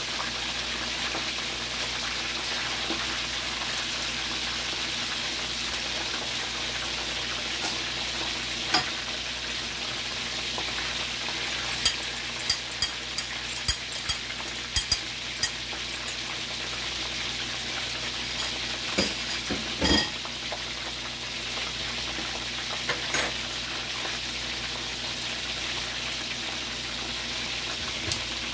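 Chicken leg quarters frying in hot oil, a steady sizzle as the skin crisps. A run of sharp clicks comes around the middle, and a single knock about two-thirds of the way through.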